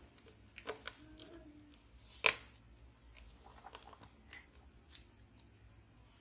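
A few small clicks and taps from handling smartphone parts and tools during reassembly, with one sharp click a little over two seconds in.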